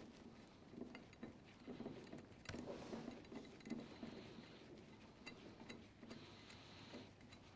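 Faint clicks and light metal rattling as a bolt is threaded by hand to fasten a steel jaw onto a MacPherson strut spring compressor's screw assembly, with one sharper click about two and a half seconds in.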